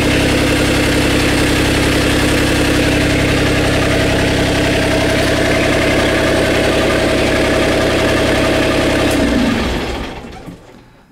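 Beta Marine 28 three-cylinder Kubota-based marine diesel idling steadily, run only briefly because its raw-water intake is shut off. About nine and a half seconds in it is switched off at the key and spins down to a stop, its pitch falling as it dies.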